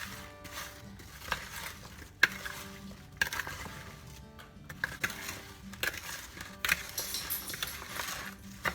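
A spoon stirring sliced apples with sugar, flour and spices in a mixing bowl: irregular scrapes, clinks and soft crunching of the apple slices. Quiet background music plays underneath.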